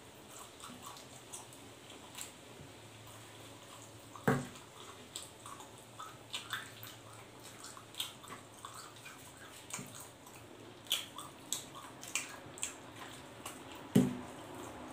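Close-miked mukbang eating sounds: wet chewing, lip-smacking and sticky mouth clicks from a man eating roast pork leg (lechon pata) with his hands. Two louder thumps come about four seconds in and near the end.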